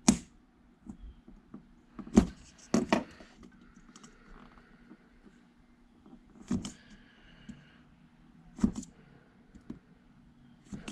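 A hot knife blade working through an LED bulb's plastic dome, giving sharp clicks and scrapes a few seconds apart over a steady low hum.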